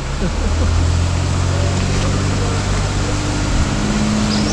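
Off-road 4x4 vehicle's engine running steadily at low revs while crawling a trail, a second tone in the drone growing louder about four seconds in, over a haze of road and tyre noise.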